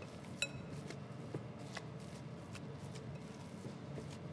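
Gloved hands kneading and squeezing a minced-meat mixture in a bowl: faint soft squishing and rustling with small irregular ticks. About half a second in, a light click briefly rings.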